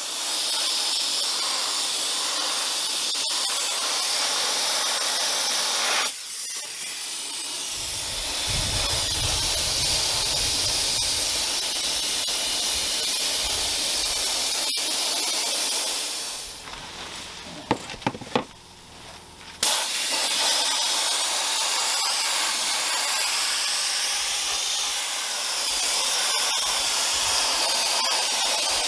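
Sandblast gun blasting grit at a wheel's metal rim: a loud, steady hiss of air and abrasive. It breaks off for a few seconds a little past the middle, then starts again.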